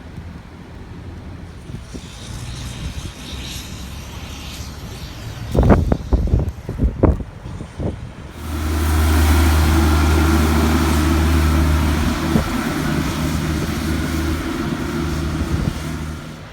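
A vehicle's engine running steadily under a loud rush of wind, starting about eight seconds in and easing shortly before the end. Before that, a low rumble and several heavy thumps.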